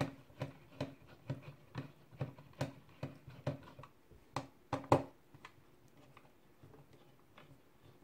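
Light clicks and taps of small hardware handled on a desk, about two to three a second and briefly louder around the middle, then trailing off to a few faint ticks: the screw-off feet being taken off the underside of an Intel NUC.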